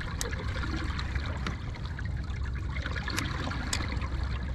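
Water trickling and lapping against a fishing kayak's hull over a steady low rumble, with three sharp clicks.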